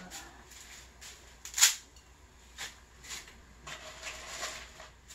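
Dry stick noodles clicking and rattling against each other and a plastic container as handfuls are pulled out: a few sharp clicks and a short rustle, the loudest about one and a half seconds in.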